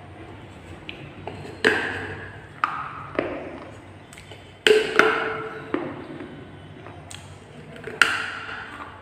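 Teeth biting and snapping pieces off the rim of a fired terracotta clay pot: a series of sharp cracks, the loudest about halfway through and near the end, each followed by a brief ringing of the hollow pot body.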